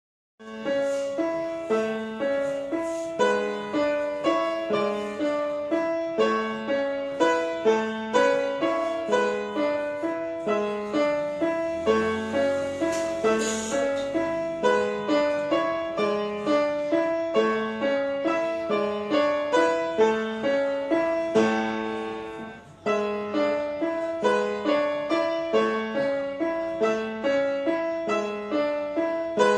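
Solo grand piano played at a steady, even pulse of notes in a repeating pattern. About three-quarters of the way through, the playing dies away for a moment and then starts again.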